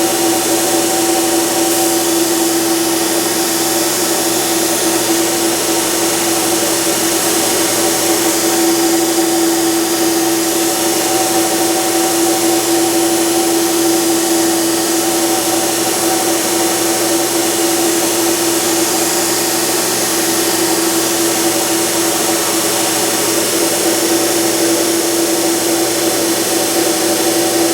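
Burr King belt grinder running a diamond abrasive belt against a carbide stump grinder tooth: a steady machine hum with one strong held tone under an even, bright hiss that does not let up.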